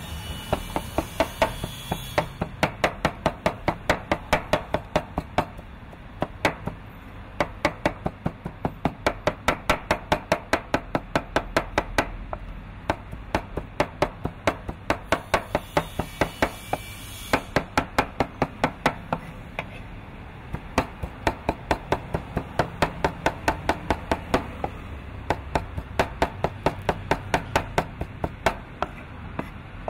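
Meat cleaver chopping raw meat into mince on a thick wooden chopping board: rapid, even strokes, several a second, with a few short pauses.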